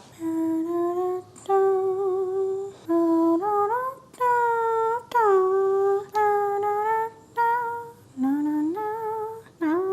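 A woman humming a short tune as a string of held notes, each about half a second to a second long, a few sliding upward in pitch.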